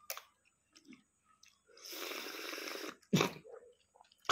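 A person slurping the broth out of an opened balut egg for about a second, then a short, sharp cough-like burst near the end.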